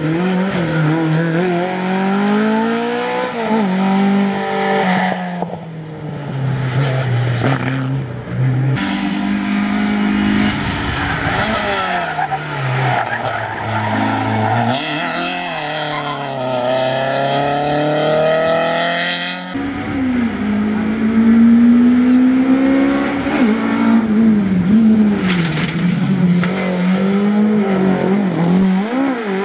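A succession of hillclimb rally cars, including an Alpine A310, a Citroën Saxo and a Simca 1000, accelerating hard out of hairpin bends, their engines revving up and dropping back through the gears. The sound changes abruptly twice as it cuts from one car to the next.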